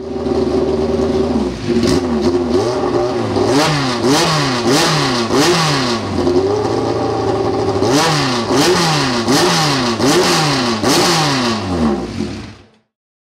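Formula Renault 2.0 race car's four-cylinder engine, running steadily at first, then revved up and down in quick repeated blips with sharp cracks at the peaks. It settles briefly midway, revs again, and cuts off abruptly near the end.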